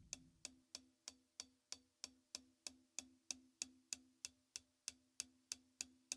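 Closed hi-hat, pedal pressed down firmly, struck with the tip of a drumstick in an even stream of light strokes, about three a second, with the stick moving to different spots on the cymbal.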